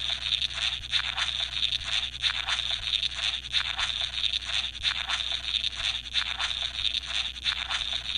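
Steady crackling, hissing static with a low hum underneath, cutting off abruptly at the end.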